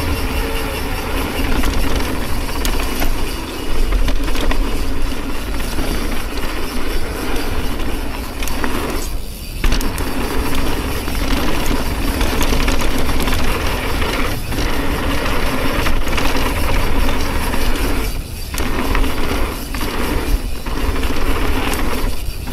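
Mountain bike descending a dirt jump trail: tyres rolling over the dirt, the bike rattling, and wind buffeting the action camera's microphone, with short lulls about nine and eighteen seconds in.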